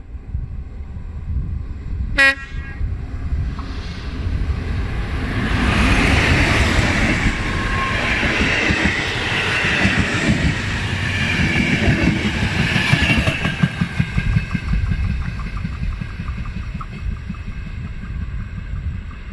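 Electric locomotive sounds one short horn blast about two seconds in, then passes close hauling passenger coaches. The wheels rumble and clatter on the rails, swelling from about five seconds in and easing off after about fourteen.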